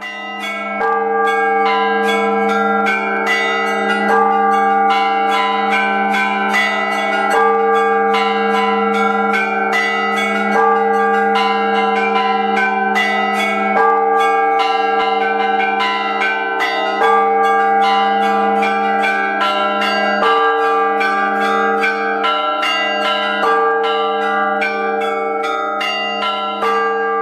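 Church bells ringing a peal: rapid strikes of several bells, a few a second, over the steady hum of a large bell.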